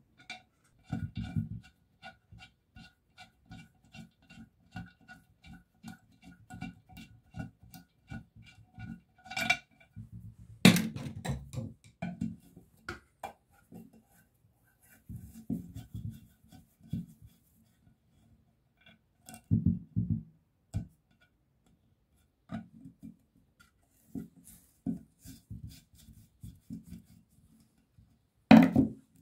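Metal clicking and clinking as nuts and bolts are worked off the rusty end cover of an electric water pump motor. For the first nine seconds or so the clicks come evenly, about three a second, with a faint ringing tone; after that come scattered sharp metal knocks, one of the loudest near the end.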